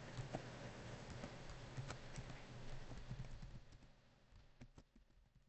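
Faint computer keyboard typing: scattered soft key clicks for about three and a half seconds, then a couple of single keystrokes near the end.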